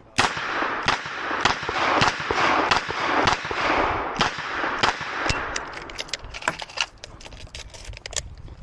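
Smith & Wesson 929 9mm revolver firing a string of shots in quick succession, about two a second, each followed by echo, over the first five seconds. Lighter, sharp clicks and knocks follow in the last couple of seconds.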